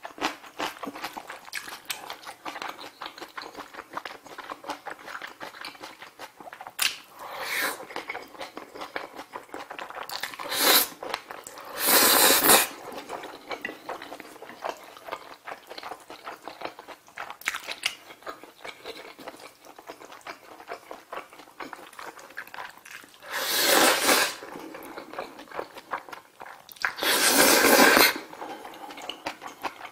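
Close-miked eating of Jjajjaroni instant black bean noodles: wet chewing and lip smacking throughout, broken by several loud slurps of about a second each, the longest near the end.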